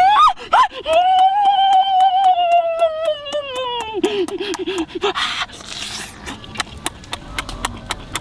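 A boy's long, high, drawn-out vocal exclamation, slowly falling in pitch and breaking into a short quavering run about four seconds in. Then a run of sharp clicks and smacks from eating shrimp by hand.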